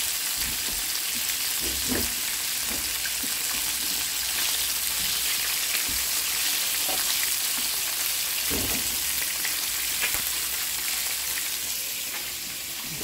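Whole crawfish frying in oil in a nonstick pan: a steady sizzle with scattered pops as they are stirred with a plastic spatula.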